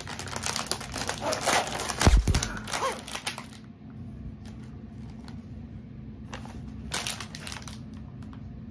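A plastic cookie wrapper crinkling and tearing as the package is opened, with a dull thump about two seconds in. The rustling dies down about halfway through and comes back as a few short crinkles near the end.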